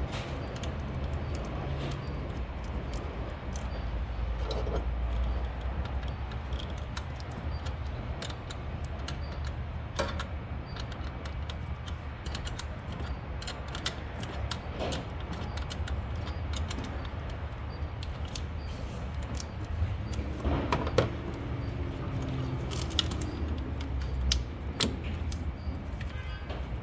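Scattered metallic clicks and clinks of hand tools and parts being handled under the hood, with a few louder knocks, over a low steady hum.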